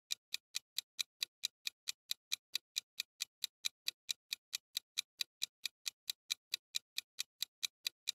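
Clock-tick sound effect of a quiz countdown timer: short, sharp ticks at a steady rate of about four a second, counting off the eight seconds allowed for an answer.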